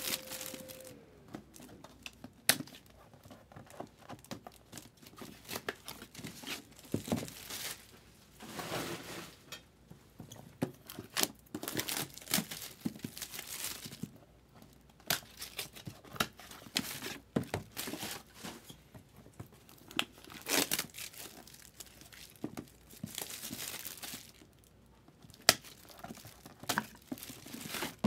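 Paper being handled: irregular rustling, crinkling and tearing in bursts, with a few sharp clicks, the loudest near the end.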